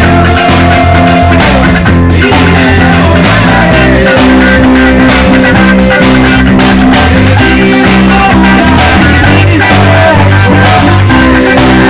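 Live band playing loudly: electric guitar and drum kit keeping a steady beat, with voices singing through microphones and a small PA amplifier.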